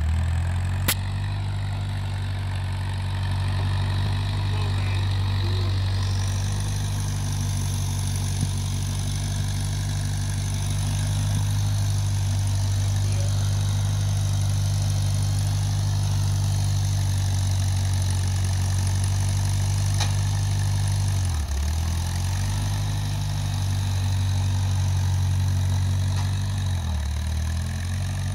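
1940s Farmall Cub tractor's four-cylinder flathead engine running steadily as the tractor drives along. The engine speed briefly sags and picks back up twice near the end.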